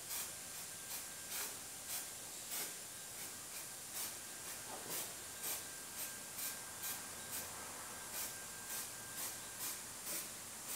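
Aerosol can of weld-through primer sprayed in short hissing bursts, about two a second, onto bare sheet metal.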